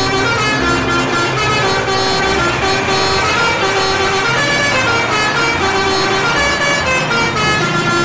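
Volvo eight-wheel concrete mixer truck driving through city traffic, its diesel engine running under a layer of steady pitched tones.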